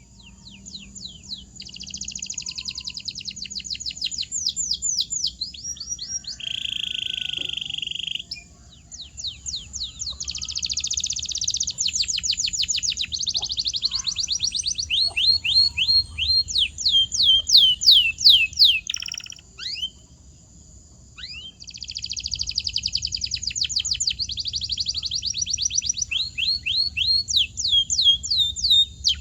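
Domestic canary singing: long fast trills of repeated falling notes, with a short steady note about six seconds in and a brief pause just after twenty seconds.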